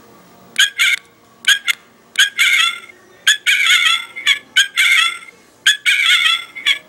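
Battery-powered light-up Christmas ornament playing a tune in electronic chicken clucks: a rhythmic run of short and long squawking notes with wavering pitch.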